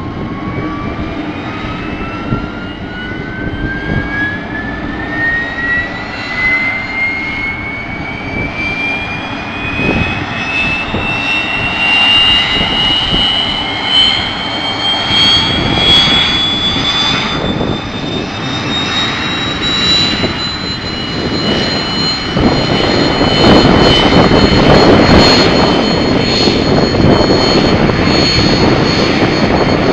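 Mil Mi-26T heavy-lift helicopter starting up. A turbine whine rises steadily in pitch and levels off about two-thirds of the way through. Then a louder rushing noise builds as the main rotor begins to turn.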